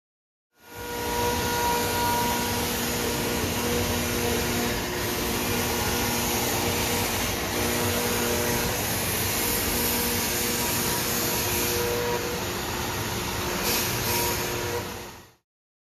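DMS E5 5-axis CNC router running: a steady rushing machine noise with a few steady tones through it. It fades in shortly after the start and fades out near the end.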